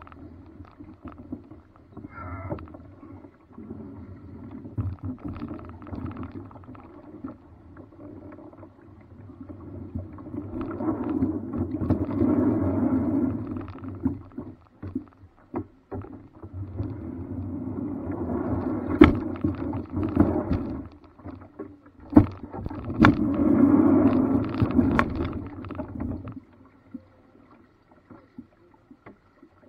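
Water noise around a small paddled boat on a river, swelling in three long stretches, with a few sharp knocks.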